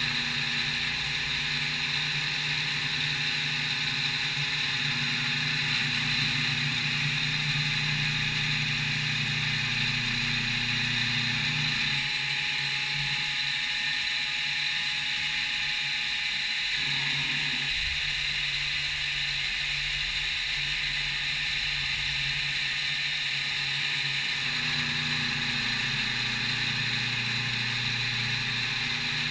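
CNC milling machine running through a machining operation: a steady high whine and hiss with a low hum whose pitch shifts about twelve seconds in, again near seventeen seconds, and back to the first hum about twenty-five seconds in.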